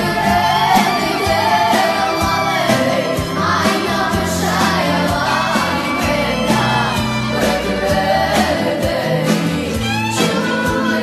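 Caucasian dance music played by a band, with a singer over sustained bass notes and a regular drum beat.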